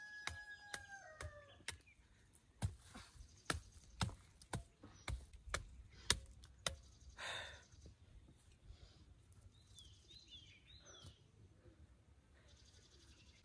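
Small hand fork striking and scraping into hard, compacted soil, a run of dull chops about two a second for several seconds, then only a few. A rooster crows at the start, its call falling away in the first second or two, and a small bird chirps a few times later on.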